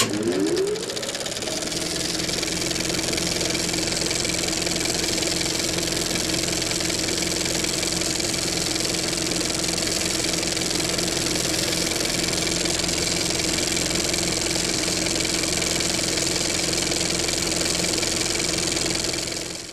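A motor-like mechanical drone that climbs in pitch over the first second as it spins up, then runs steadily with a hum and a high hiss, cutting off at the end.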